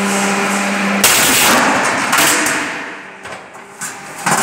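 Steel decking roll forming machine: a steady running hum stops about a second in, and a loud sudden metallic crash rings and dies away over a second or two. A second bang follows about a second later, and a sharp knock comes near the end.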